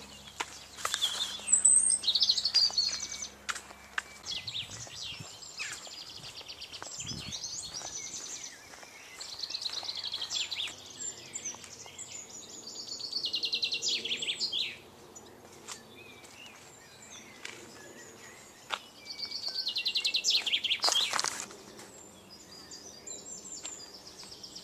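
A small songbird singing in short, high, rapid trilling phrases, about five of them a few seconds apart.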